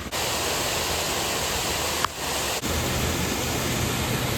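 Steady rush of a waterfall, an even hiss of falling water, broken by two brief cuts about two seconds in.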